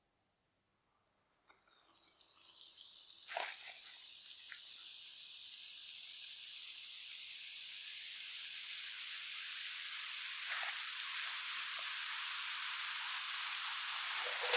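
Bath bomb fizzing in a glass bowl of water: a hiss of bubbles that starts about two seconds in and grows steadily louder, with a few brief crackles.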